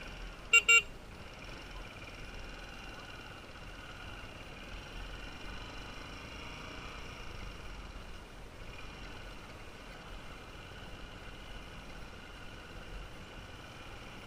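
Two quick horn beeps just after the start, then a motorbike running steadily along a dirt track, with low wind rumble on the microphone.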